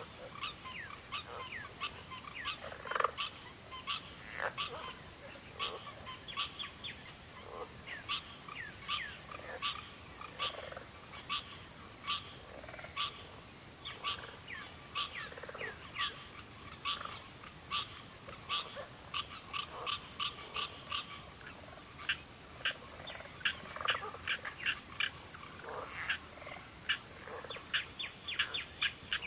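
Crickets trilling at twilight: one steady, unbroken high trill. Many short falling chirps are scattered over it throughout.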